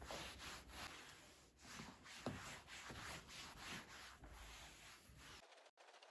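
Faint rubbing strokes on a surface, several in a row at an uneven pace, such as hand cleaning makes. The sound briefly cuts out near the end.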